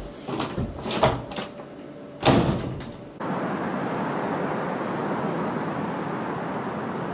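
A few knocks and thuds, the loudest a door shutting a little over two seconds in. About three seconds in, this changes abruptly to a steady hiss of outdoor city noise with distant traffic.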